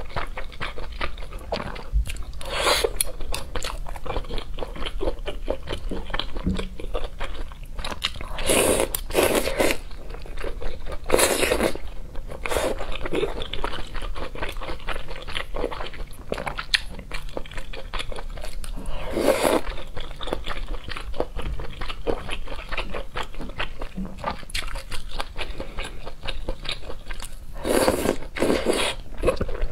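Close-miked eating: chewing and biting into spicy noodles and fish cake, with a number of short, loud slurps of noodles spread through, three in quick succession near the end.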